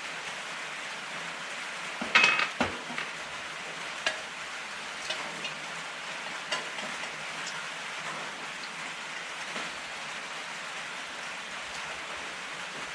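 Steady rain hissing, with dishes and cutlery clinking now and then; a short clatter of tableware about two seconds in is the loudest sound.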